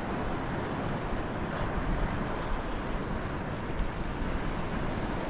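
Steady wind rush on the kayak-mounted camera's microphone over sea water moving past the kayak in a running tide.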